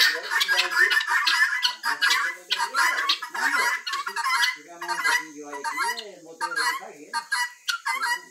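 A flock of helmeted guineafowl calling from their roost: a dense, rapid chatter of harsh repeated cackles, thinning out in the second half.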